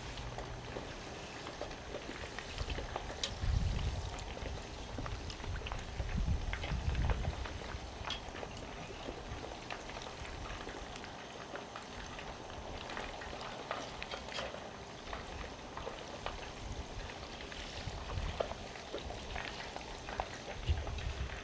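Chicken wings deep-frying in hot peanut oil in a cast-iron Dutch oven: a steady sizzle with scattered pops and crackles. Wind buffets the microphone with a low rumble a few times.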